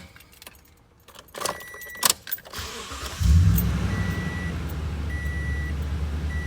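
Keys jangle and click in the ignition, with a brief dash chime, then the Toyota Tundra's 5.7L V8 cranks and starts about three seconds in and settles into a steady idle. A dash warning chime beeps repeatedly over the idle.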